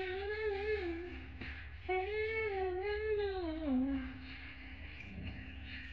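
A woman humming a tune without words, in two phrases; the second is longer and slides down in pitch at its end.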